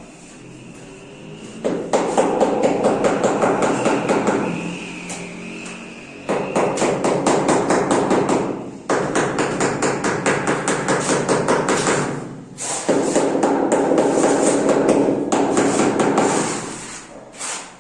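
Rapid repeated hammering strikes in runs of a few seconds each, with short pauses between them.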